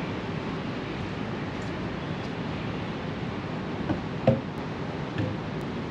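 Steady wind noise rushing on the microphone, with a sharp thump a little past four seconds in and a couple of lighter knocks as the Onewheel Pint board is set down on a table.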